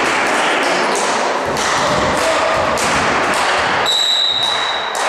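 Echoing sports-hall noise with repeated thuds, likely a volleyball hitting the floor, then a referee's whistle blown once near the end and held for about a second, signalling the next serve.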